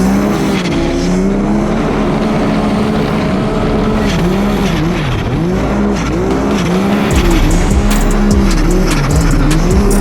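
Snowmobile engine running hard, steady at first and then revving up and down repeatedly as the throttle is worked.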